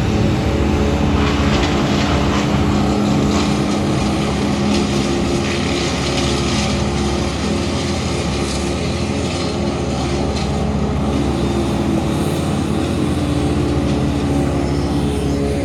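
An engine running steadily, its pitch rising and falling a little, over a low rumble.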